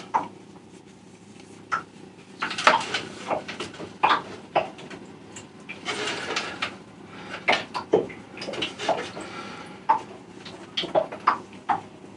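Scattered clinks, taps and short scrapes as a metal diesel fuel filter canister is handled and filled with diesel, with a few brief rustling, pouring-like stretches.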